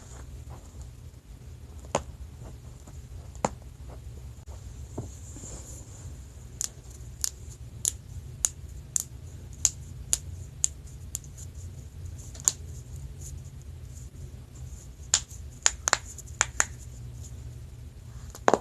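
A woman cracking her own back: a series of short, sharp pops and clicks from the spinal joints. A run comes about twice a second through the middle, and a quick cluster near the end, all over a steady low hum.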